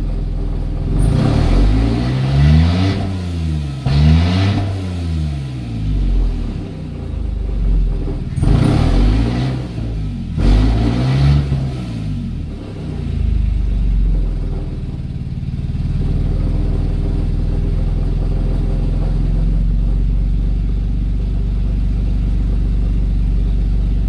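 2009 Toyota Camry's 2GR-FE 3.5-litre V6 revved quickly from idle four times, in two pairs, then settling to a steady idle, heard from inside the cabin. The engine has lost power with no misfire detected, which looks like diesel in the tank.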